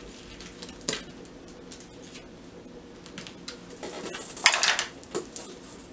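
Small clicks and light rustling as small plastic toy items and their packaging are handled on a table, with one louder crinkling rustle of packaging about four and a half seconds in.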